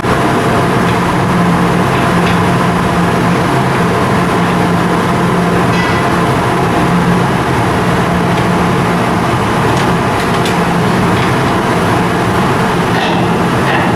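Ship's diesel engine running steadily: a loud, even machinery noise with a constant low hum and a few faint clicks.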